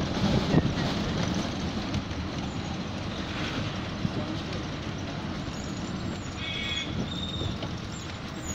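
Running noise of a moving bus heard at an open window: a steady engine drone and road noise, with a brief high-pitched squeal about six and a half seconds in.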